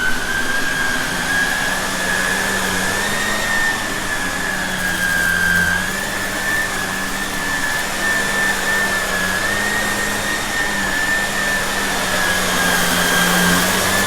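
Shark vacuum cleaner running steadily, its motor giving a high whine that wavers slightly in pitch over a lower hum and a rush of air.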